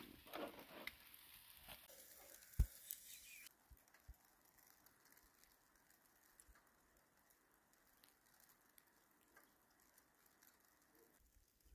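Light handling sounds and faint crackling at a charcoal kebab grill, with one sharp thump about two and a half seconds in. From about three and a half seconds on, near silence with a few faint ticks.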